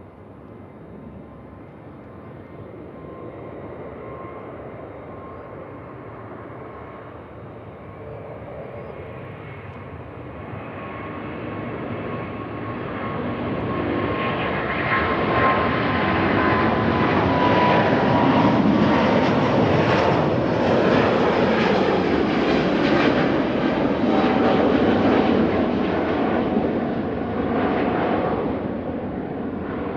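Jet airliner engines passing: the engine noise builds to a peak about two-thirds of the way through, then eases off. A high whine in the noise falls slightly in pitch as the aircraft goes by.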